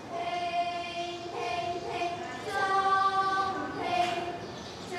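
Young voices singing a slow song together, holding long notes and stepping from pitch to pitch.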